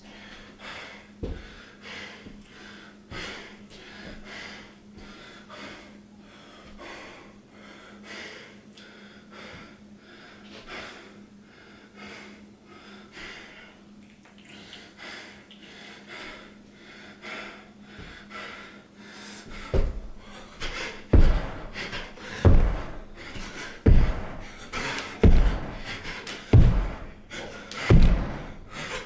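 Heavy, laboured breathing from a person exercising while sick. About two-thirds of the way in it gives way to a regular run of loud thumps, about one every second and a half, with panting between them.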